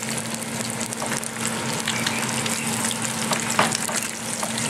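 Eggs frying in hot bacon fat in a pan: a steady sizzle with scattered crackles and pops from the spitting fat, the strongest pop about three and a half seconds in.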